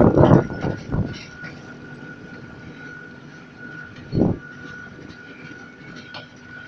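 Panoramabahn monorail train running along its elevated track, with a steady high whine from its drive. Low rumbling knocks in the first second and a single short thud about four seconds in.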